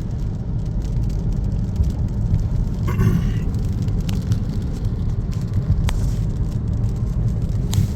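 Steady low rumble of a car driving, with a brief higher-pitched warble about three seconds in and a few faint clicks.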